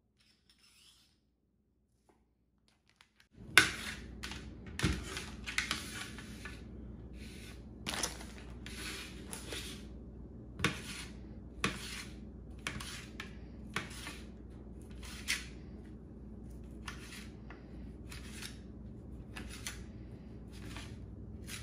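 Knife slicing a ring of beef sausage on a platter: sharp cuts clicking against the plate about once or twice a second, starting a few seconds in, over a steady low hum.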